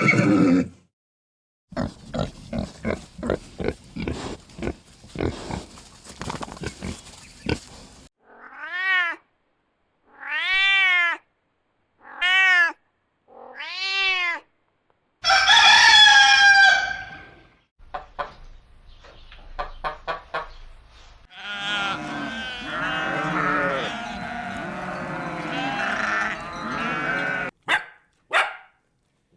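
Farm animal calls one after another: about six seconds of quick repeated clucks, then four meows that rise and fall in pitch. These are followed by a loud crow of about two seconds and then a dense jumble of overlapping chicken calls.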